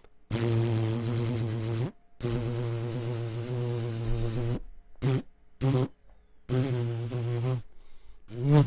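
Vocal imitation of a bumblebee: a low buzzing hum made with the voice, first in two long stretches, then in several short ones with pauses between.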